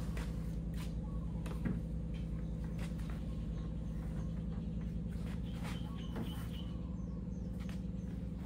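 A surfboard is set into a scooter's metal side surf rack, with a series of light knocks and taps as it meets the rack tubes, over a steady low mechanical hum from an unseen machine.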